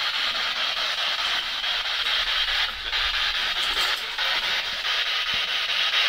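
Spirit box scanning through radio frequencies: a steady hiss of radio static with a fast choppy flutter as it jumps from channel to channel.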